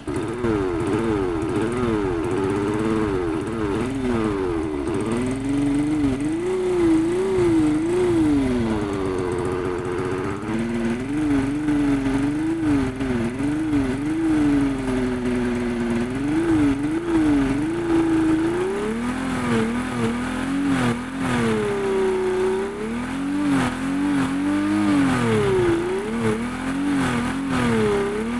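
Electronic big-bike engine sound effect played through an old speaker with a hole in it, fitted to a 110 cc motorcycle, revving up and down over and over in smooth pitch sweeps. It starts abruptly and cuts off suddenly near the end.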